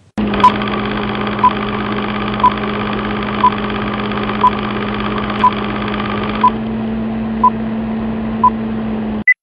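A steady electrical-sounding hum with a short, high beep exactly once a second, nine beeps in all. The hum changes slightly about two-thirds of the way through, then cuts off suddenly.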